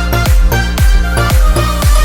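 Background electronic dance music with a steady four-on-the-floor kick drum, about two beats a second, under sustained synth tones.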